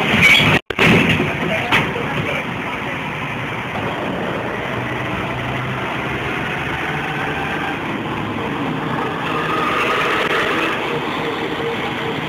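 Ikarus 280 articulated city bus driving past with its diesel engine running, over general street traffic noise; the engine sound grows louder a couple of seconds before the end as the bus comes close. In the first second there is a burst of loud noise, cut by a sudden silent gap.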